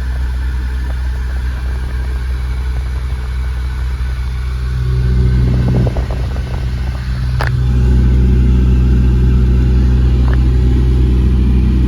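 2015 Kia Soul's cabin blower fan running on max: a steady low drone, with the idling engine under it. It gets louder about five seconds in and steps up again with a click a couple of seconds later. The low noise began after a cabin air filter change, which the owner suspects is the cause, or the broken filter door.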